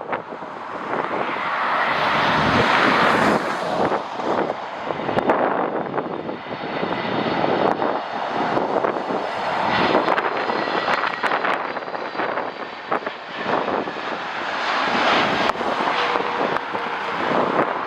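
Jet airliner engines running as an aircraft passes, with a faint steady whine, while gusty wind buffets the microphone.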